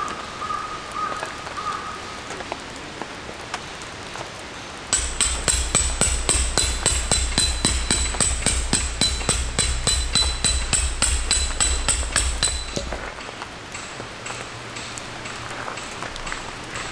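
Steady rain, then about eight seconds of quick, even hammer blows on metal, about four a second, each ringing: a metal tent stake being driven into the ground.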